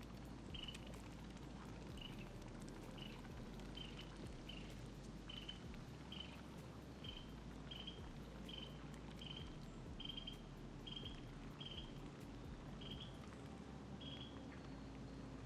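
An animal calling with short, high chirps, about two a second, over a faint low rumble.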